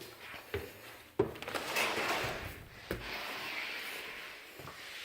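A few soft knocks, then a steady rustling and rubbing hiss, like something being handled or brushed against.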